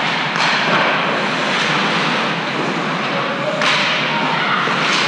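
Ice hockey game on a rink: skate blades scraping across the ice in strides and stops. There are hissing swells near the start and again near the end over a steady rink hiss.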